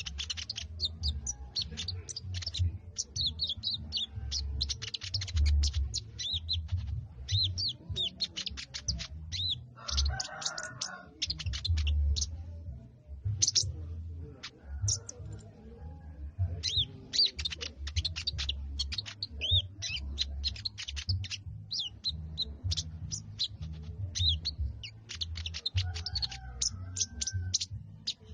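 A sogon bird's chattering call: rapid runs of high, thin chirps, broken by a short pause about halfway through, over a steady low rumble.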